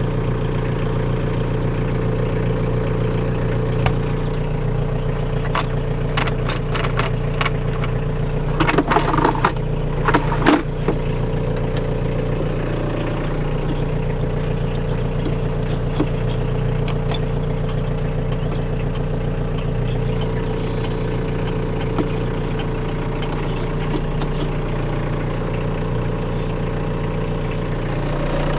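Renault Kangoo's 1.9-litre diesel engine idling steadily in its first run after standing four years. A run of sharp clicks about six seconds in and a short clatter a few seconds later sit over it.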